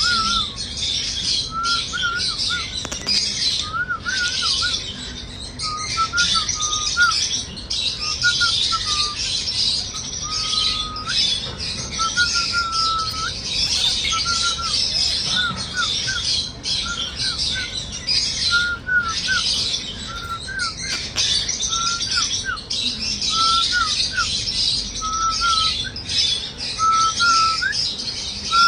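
Many birds chirping together in a dense, continuous chatter, with short whistled notes, some sliding up or down, repeating throughout at a lower pitch.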